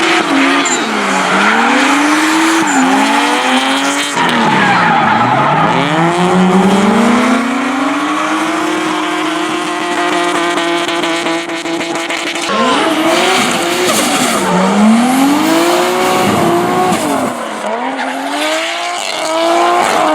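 Drift car engine revving hard, its pitch dropping and climbing again and again and held at high revs for several seconds midway through a long slide, with tyres squealing.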